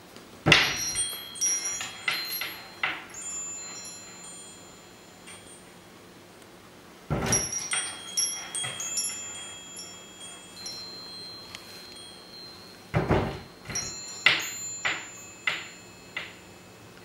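Wind bell jangling as a kitten bats at it: three flurries of strikes about six seconds apart, each leaving high ringing tones that fade away.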